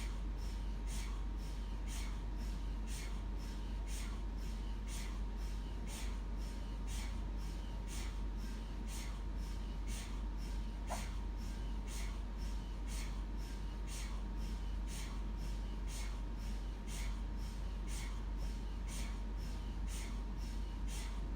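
MRI scanner running a scan sequence: an even rhythm of sharp ticks, about two a second, over a constant low hum and a faint steady tone.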